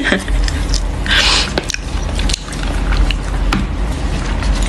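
A person chewing a mouthful of rice, with scattered small clicks and a short hiss about a second in.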